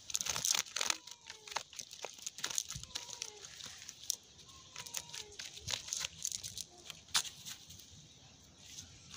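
Cast-net mesh rustling and crackling in irregular bursts as fish are worked out of it by hand on grass.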